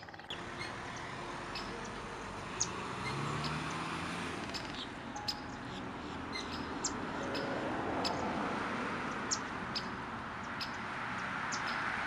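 Outdoor ambience: a steady hiss of background noise with short, high bird chirps every second or so.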